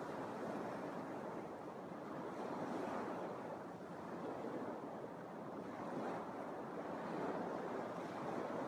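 Small Lake Michigan waves lapping and breaking on a sandy beach: a steady wash that swells and eases every couple of seconds.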